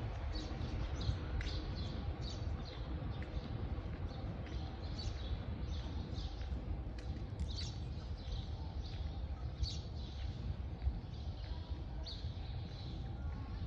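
Birds chirping in the park trees at dawn: many short, high chirps, a few each second, over a steady low rumble.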